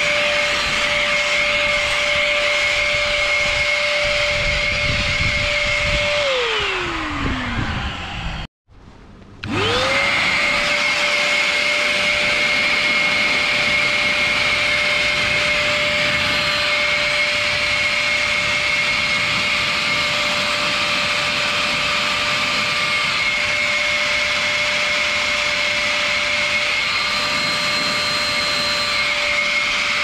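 An 1800 W vacuum cleaner motor in a homemade PVC-pipe blower runs with a steady high whine over rushing air. About six seconds in it winds down, its whine falling in pitch, and after about a second of silence it spins up again, the whine rising quickly back to full speed and then holding steady.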